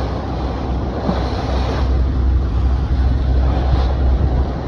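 Fishing boat underway at sea: a steady low engine rumble under the rush of water and wind buffeting the microphone.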